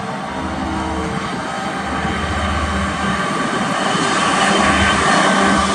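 Diesel locomotives of a Union Pacific intermodal train, led by a GE ES44AC, are approaching. Their engines make a steady drone with a few held tones, growing louder as the train nears.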